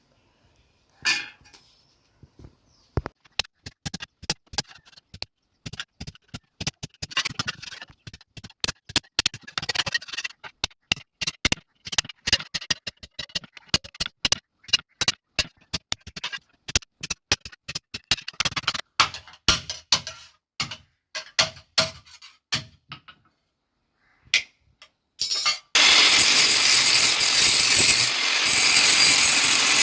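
Metalwork at the bench: many quick, irregular taps and clinks of metal on metal. Near the end an electric power tool starts and runs loud and steady.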